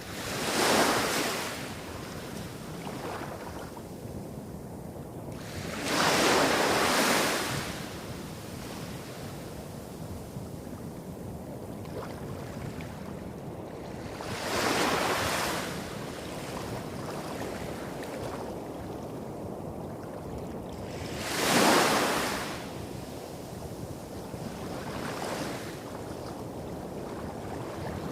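Small waves breaking and washing up a beach: four main surges every six to eight seconds, with smaller ones between, over a steady low rumble of waves hitting rocks a few hundred metres off.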